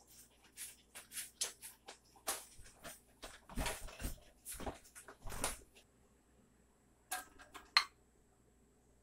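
Light clanks and clicks of a pressure canner's metal lid and a jar lifter being handled, in an irregular run of knocks, then two sharper clicks near the end.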